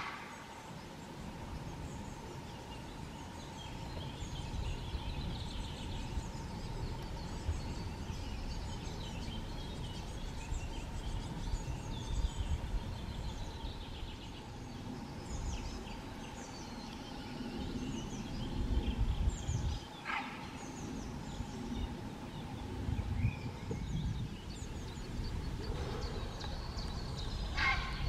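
Songbirds singing: scattered short high chirps and whistles, over a low rumble and a faint steady hum. There are brief louder calls about twenty seconds in and again near the end.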